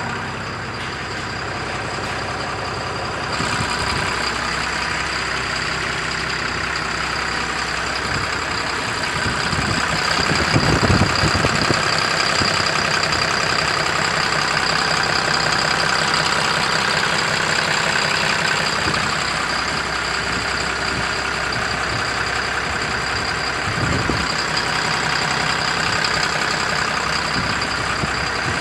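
Tata 3718 truck's newly installed Cummins BS4 six-cylinder diesel engine running at idle after the engine replacement, with a steady high whine over it; it gets a little louder a few seconds in and again around ten seconds.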